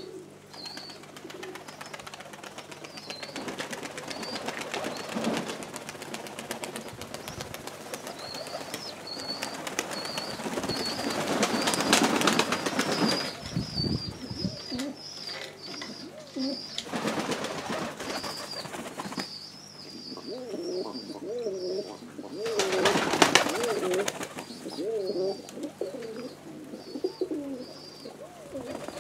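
Domestic pigeons cooing, with several loud whirs of wing-flapping as birds take off from the feeding flock, the loudest near the middle and two-thirds in. A small bird chirps high and repeatedly throughout.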